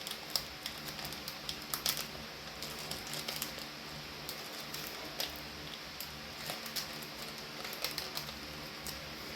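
Light, irregular crackles and clicks of a foil booster-pack wrapper and trading cards being handled, over a faint steady hum.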